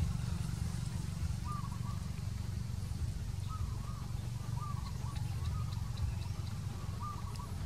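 Steady low rumble with short, high chirping calls repeating every half second to a second, and a few faint high ticks.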